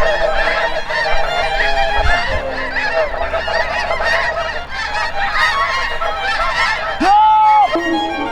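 A large flock of snow geese calling, many high honks overlapping into a continuous din. About seven seconds in, one louder call is held for under a second.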